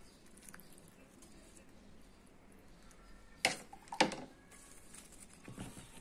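Two sharp knocks about half a second apart, from a plastic flowerpot and ladle being handled while a houseplant is watered. Faint handling sounds lie under them.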